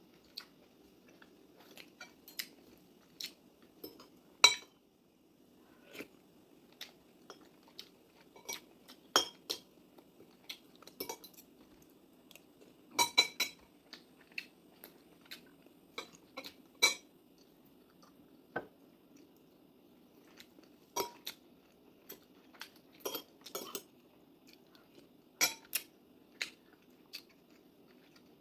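Cutlery clinking against dishes during a meal: irregular sharp clinks, sometimes two or three close together, over a faint steady low hum.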